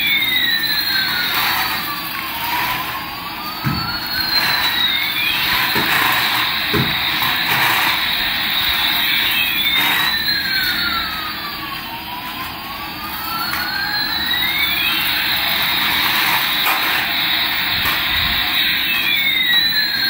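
Toy Airbus A380's electronic jet sound effect: a steady rushing jet noise with two crossing electronic tones, one sweeping down and back up while the other sweeps up and back down, the pattern repeating about every nine and a half seconds. Two short knocks come through early on.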